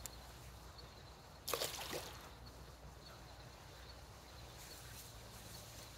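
A short splash about one and a half seconds in as a released largemouth bass drops back into the river water.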